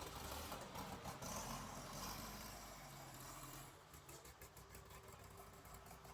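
Combine harvester engine running, faint and steady, dropping slightly in level after about four seconds.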